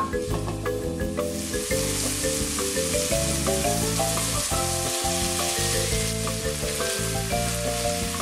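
Food sizzling in oil in a frying pan, the sizzle coming in about a second in and holding steady, over background music.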